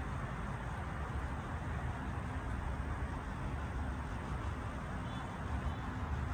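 Steady low outdoor background rumble, with no distinct events.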